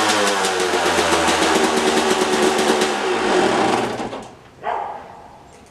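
Two-stroke dirt bike engine running with a fast, even firing rattle, then its pitch drops and it dies out about three and a half seconds in.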